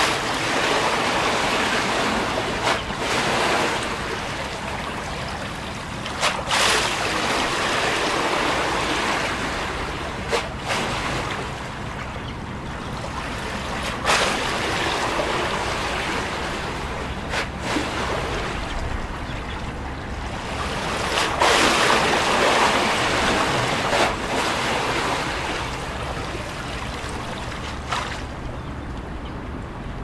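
Small harbour waves washing against a concrete seawall. The washing swells and eases every few seconds, and each swell is broken by a sharp splash or slap of water against the wall.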